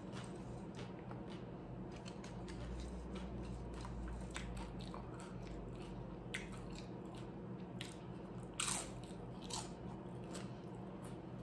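Close-up chewing and crunching of loaded shrimp nachos, crisp chips cracking between the teeth in a run of short crunches, the loudest about nine seconds in. A steady low hum runs underneath.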